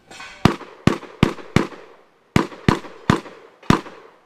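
A brief shot-timer beep, then a shotgun fired eight times: four shots in quick succession, a short pause, then four more, each with a short echo.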